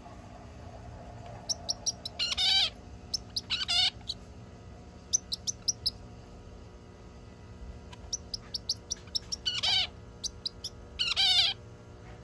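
Male zebra finch singing: twice, a run of quick high chirps leads into a few longer notes that fall in pitch.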